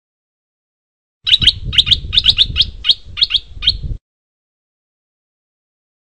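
Caged bulbul calling: a quick run of about ten short, sharp chirps that starts about a second in and stops abruptly near the fourth second.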